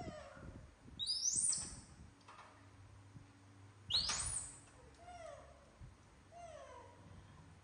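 Baby macaques calling: two loud, high-pitched calls that sweep up and then fall, about a second in and about four seconds in, followed by three softer, lower falling calls.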